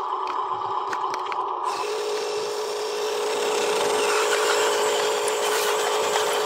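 Small electric motor whining in the tipper ram of a Huina RC dump truck as the raised bed is worked. About two seconds in, the whine drops to a lower steady pitch while the bed comes down onto the chassis.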